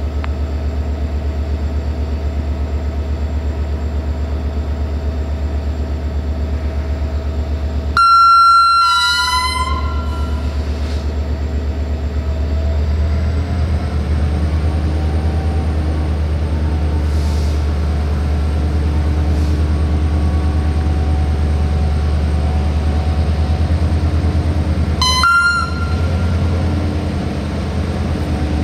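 Romanian CFR class 64 (GM) diesel-electric locomotive approaching slowly with its engine running in a steady low drone. About eight seconds in it sounds one loud horn blast lasting about a second and a half, and near the end it gives a second, short toot.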